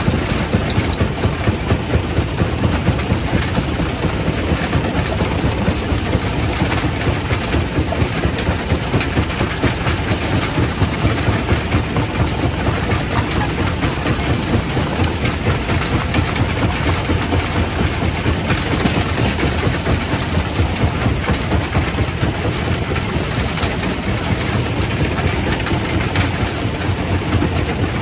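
Quarry primary rock crusher running and crushing stone: a steady heavy rumble with frequent short knocks of rock against rock and steel.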